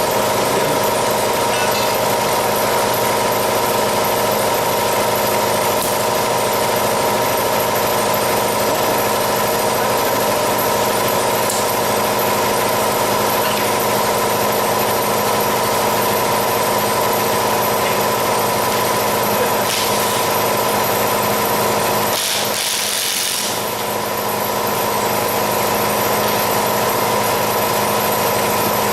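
Steady mechanical hum from a running motor, dipping briefly with a short hiss about three quarters of the way through.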